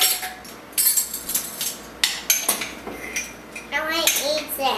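Kitchen utensils and dishes clinking and knocking, several sharp clinks over the first few seconds. In the last second a young child's voice is heard briefly, rising and falling in pitch.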